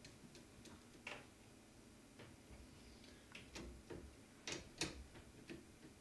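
Faint, irregular metallic clicks of a screwdriver turning a belt-tensioning screw on a 3D printer's idler, with a pair of louder clicks a little past four and a half seconds in.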